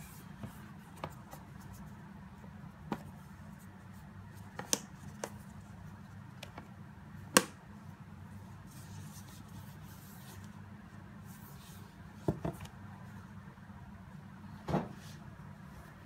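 Rigid cardboard gift box handled with gloved hands: scattered light taps and clicks, the sharpest about seven seconds in as the magnetic flip-top lid snaps shut. A steady low hum runs underneath.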